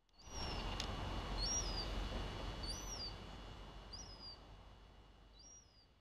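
Gull chick peeping: a thin, high call that rises and falls, repeated five times about every second and a half. Under it, a louder rushing noise starts suddenly just after the start and fades out over about five seconds, with a single sharp click about a second in.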